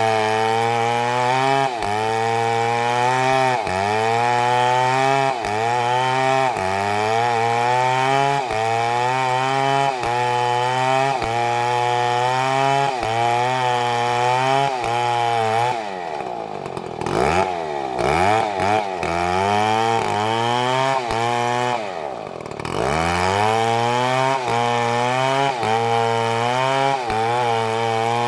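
STIHL chainsaw engine running hard while cutting wood, its pitch sagging and recovering in a regular cycle about every two seconds. About halfway through, and again a few seconds later, the engine drops briefly toward idle before revving back up.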